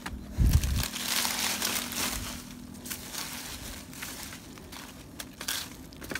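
Dry leaves and twigs rustling and crackling as someone pushes through leaf litter and brush. A dull thump comes about half a second in, the rustling is loudest over the next two seconds, then thins to scattered snaps and clicks.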